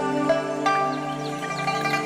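Background music: plucked notes ringing out over sustained low tones.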